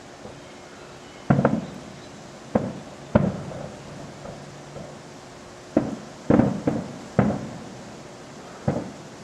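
Fireworks exploding: a string of sharp bangs at uneven intervals, some coming in quick clusters, each trailing off in an echoing tail.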